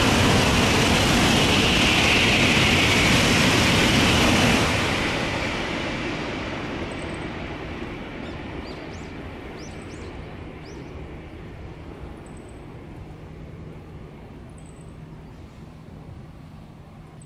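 Shinkansen bullet train passing at speed on a concrete viaduct, a loud rushing roar for the first four seconds or so. It then fades slowly as the train runs off into the distance.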